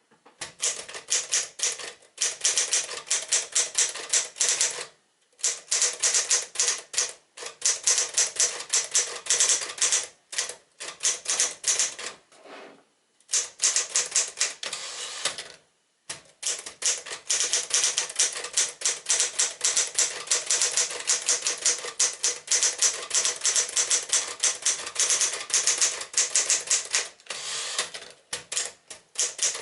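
1964 Smith-Corona Classic manual portable typewriter being typed on at speed: rapid key and typebar strikes in runs of several seconds, broken by a few short pauses.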